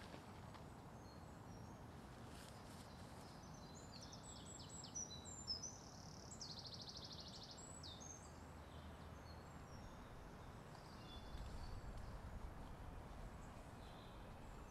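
Faint songbird song over a steady background hiss: scattered high chirps and a fast trill lasting about a second near the middle. A low rumble comes in briefly towards the end.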